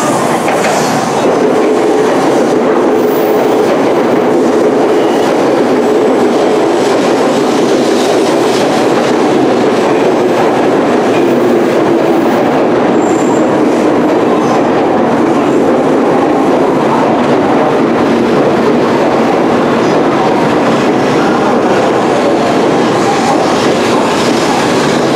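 700 series Shinkansen train arriving at the platform, its cars rolling past with a steady, even rolling noise.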